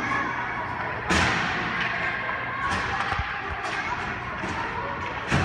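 Hockey sticks and pucks knocking on the ice during stickhandling drills: several sharp clacks and thuds, the loudest about a second in, each with a short ring-out. A murmur of distant voices runs underneath.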